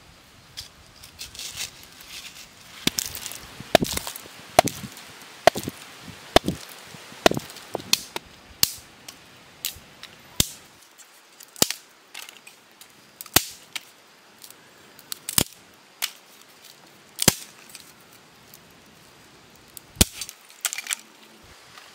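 A machete blade chopping and splitting thin dry sticks: a series of sharp wooden cracks, about one a second at first, then spaced a second or two apart.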